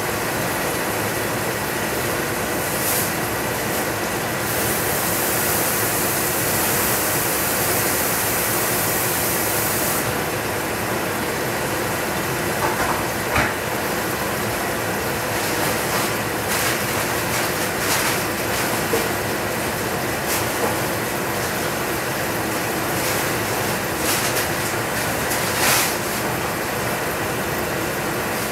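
Chicken sizzling and steaming in a lidded stainless saucepan over a gas flame: a steady hiss, louder and brighter for a few seconds near the start, with scattered pops and ticks later on.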